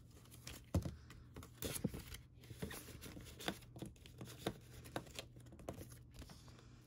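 Paper banknotes being flicked through and counted by hand, then a paper envelope handled near the end: a string of short, irregular crisp paper flicks and rustles, the loudest about a second in.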